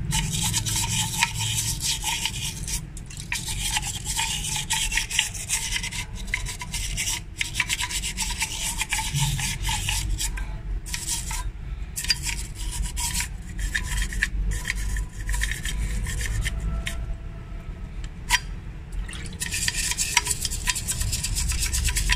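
Toothbrush scrubbing carbon deposits from the inside of a wet Mitsubishi Montero Sport EGR pipe: rapid scratchy brushing strokes, easing off briefly about halfway through and again near the end.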